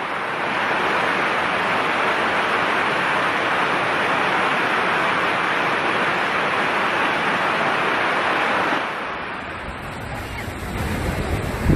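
Steady, loud rush of water. About nine seconds in it cuts off to a quieter hiss with low wind rumble on the microphone.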